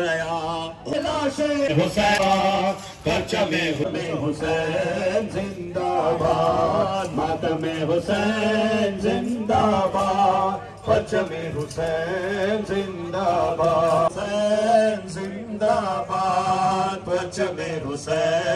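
Men chanting a noha, the mourning lament for Imam Husain recited at Muharram, in long melodic phrases with short breaks between them.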